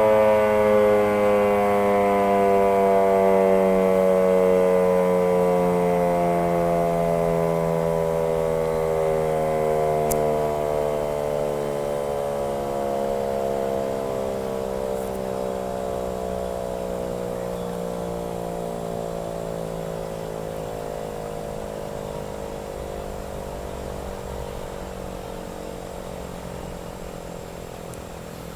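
1942 Model 5A electric siren, an 18-inch rotor driven by a 7.5 horsepower motor, winding down: one wailing tone with many overtones slides slowly and steadily lower as it fades.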